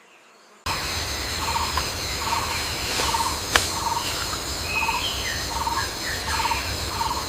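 Tropical forest ambience: a steady high insect drone, with an animal's short call repeated roughly once a second and a few higher chirps. It starts abruptly just under a second in, and one sharp click comes a little past halfway.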